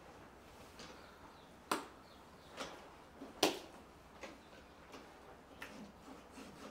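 Hand-milking a Gir cow: streams of milk squirting into a frothy steel bucket, short squirts at an uneven pace, roughly one a second.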